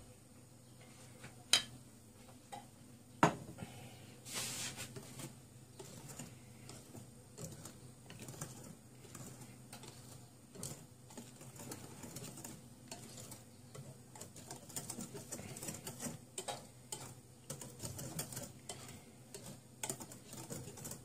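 Wire hand whisk stirring batter in a glass bowl, its wires clicking and tapping irregularly against the glass, with two sharper knocks about one and a half and three seconds in.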